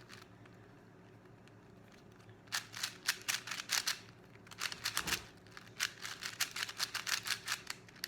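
4x4 Rubik's cube being turned quickly by hand: a fast run of plastic clicks and clacks as the layers snap round, starting about two and a half seconds in after a quiet start.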